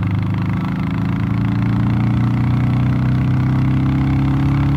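Royal Enfield Classic 350 Reborn's 349 cc single-cylinder engine, fitted with a DNA stage 2 performance air filter, pulling hard under acceleration from about 60 to 80 km/h. Its note climbs slowly and steadily in pitch with the revs.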